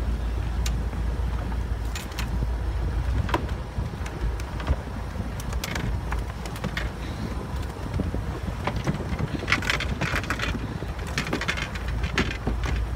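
Steady low rumble of an outboard motor running at slow trolling speed, mixed with wind on the microphone. Scattered crackles and rustles come and go, bunched about two thirds of the way in.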